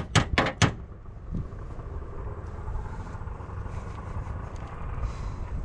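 Four quick hammer taps on the car's sheet-metal front fender in the first second, one more lighter tap shortly after, then a low steady rumble.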